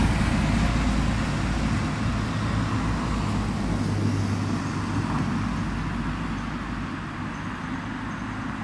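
Yutong low-floor city bus driving away, its engine hum low and steady and slowly fading as it pulls off, over general road traffic noise.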